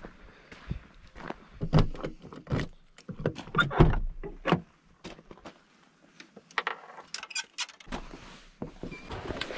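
Footsteps on gravel with knocks and rattles of gear being handled. Then, a little past the middle, keys jangle and a van's hinged side door is unlatched and opened.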